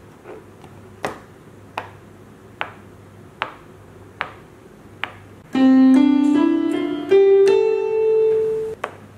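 Rainbow silicone push-pop bubble fidget toy giving a slight pop each time a bubble is pressed down, about one pop a second. About halfway through, a short run of notes stepping upward is played on an electronic keyboard, louder than the pops.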